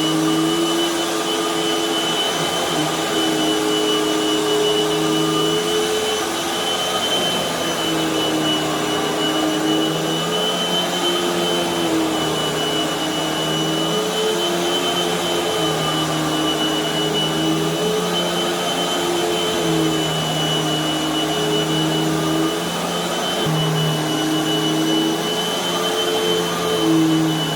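Hoover High Performance upright vacuum cleaner running on carpet, with a steady high whine. Its lower motor note shifts up and down every few seconds, in step with the vacuum being pushed and pulled.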